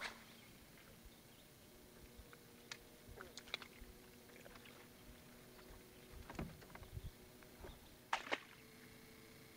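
Quiet handling on a bass boat deck: scattered faint knocks and clicks over a low, steady hum.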